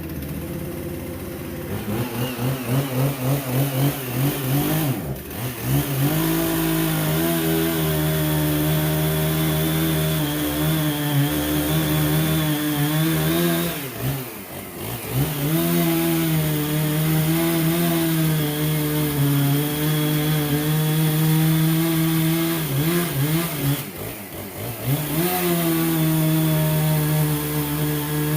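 Two-stroke chainsaw cutting firewood. It is revved in short pulses at first, then held at full throttle with a steady engine note. It is eased off briefly twice, about halfway through and near the end, and each time it comes back up to full speed.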